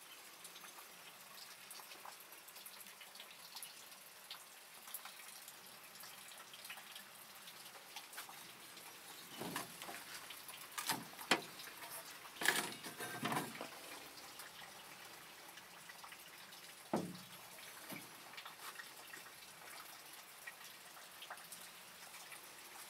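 Knocks and scrapes of an aluminium 16-valve cylinder head being handled and turned, bunched together about halfway through, with one more knock a few seconds later, over a faint steady hiss.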